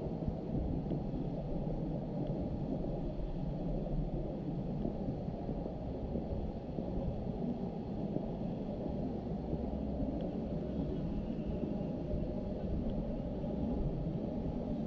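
Steady low rumble of wind buffeting the recording microphone, with no clear sound from the game.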